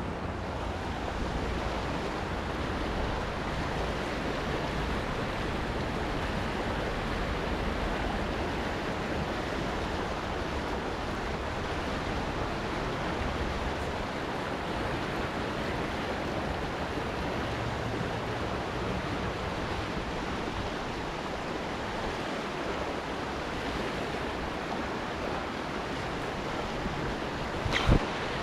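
Steady rush of fast-flowing river water, with one brief knock near the end.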